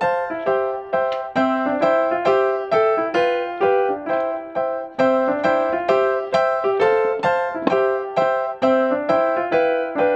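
Background music on a piano-like keyboard: a gentle melody of struck notes, each fading away, about two or three a second.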